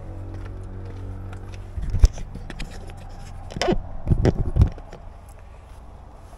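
Handling noise close to the microphone: clicks, scraping and a few heavy low knocks as hands work with gear at an open car hatch. The loudest knocks come about two seconds in and again around four seconds. Under them is a low steady hum that fades out over the second half.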